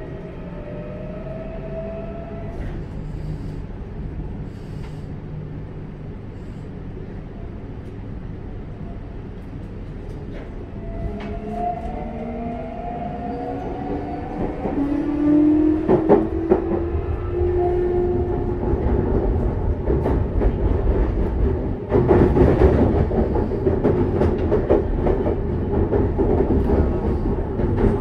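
Interior running sound of a Toei 6300 series train with Mitsubishi GTO-VVVF traction control: the inverter and motors whine in rising tones as the train accelerates, and wheel and rail noise grows louder. In the last third it runs at speed with a steady rumble and sharp clicks from rail joints.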